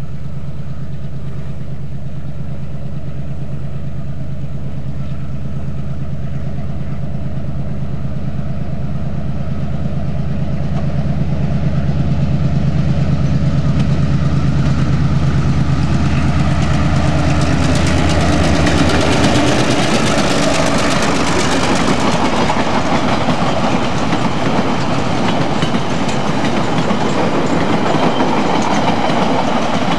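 Old WAGR A class diesel locomotive approaching under power with a steady low engine drone that grows louder, then passing about 19 seconds in. After that its string of flat wagons rolls past, the wheels clattering over the rail joints.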